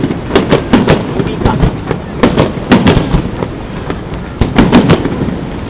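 Aerial firework shells bursting, an irregular run of sharp bangs, several a second, in clusters.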